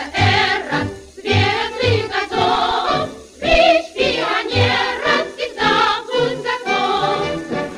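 Children's choir singing a song together, with a steady low beat of accompaniment underneath.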